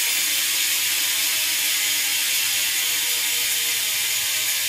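Profile Mini SS cassette hub on a BMX rear wheel freewheeling, its pawls ratcheting so fast they make a loud, steady buzz.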